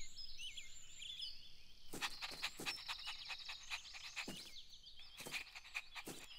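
Garden ambience of birds chirping, then a cartoon puppy panting in quick, regular breaths about two seconds in, over a steady high chirring.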